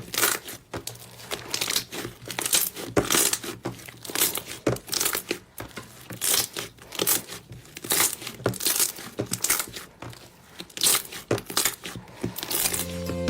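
Slime being squeezed and worked by hand, giving irregular crackling, popping pops several times a second.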